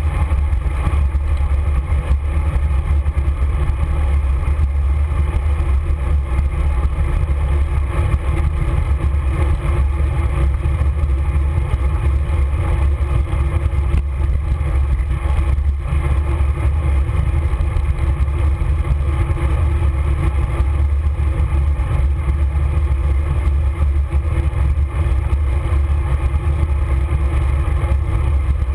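Steady low rush of wind buffeting the microphone of a camera mounted on a road bicycle riding at speed, mixed with road noise.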